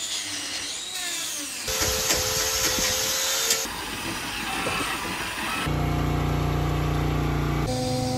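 A string of short farm-machinery clips cut together every two seconds or so. A handheld power tool whines and grinds at a cow's hoof, then machinery hums steadily, from the milk tanker pumping milk out of the silos.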